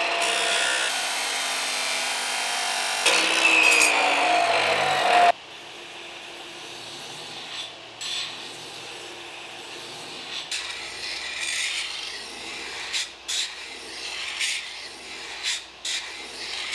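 A 14-inch abrasive cut-off saw cuts through doubled steel bar stock (1084 and 15N20), a loud steady grind with a ringing tone that rises near the end of the cut, then stops abruptly about five seconds in. After that a belt grinder runs more quietly, with short scraping passes as the steel pieces are pressed against the belt to clean them up.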